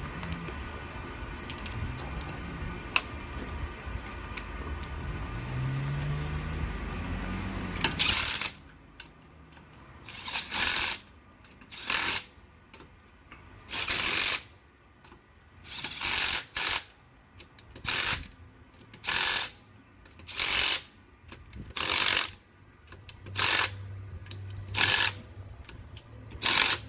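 An impact wrench running lug nuts onto a car wheel in short bursts, about fourteen of them at roughly one every second or so. Before the bursts start there is a steady mechanical hum.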